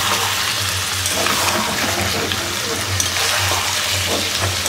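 Chicken pieces frying in oil and their own juices in an iron kadai, sizzling steadily while being stirred and turned with a metal spatula, with a few light scrapes and clinks against the pan. This is the kosha stage, the meat being browned with onion and spices.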